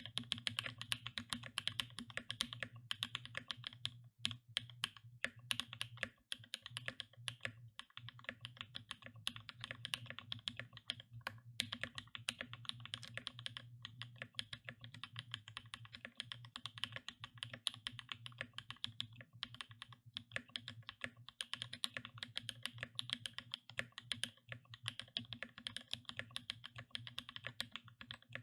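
Continuous fast typing on a Boardsource Mark 65 hot-swap custom mechanical keyboard with an FR4 plate: a dense, unbroken stream of key clacks over a low steady hum.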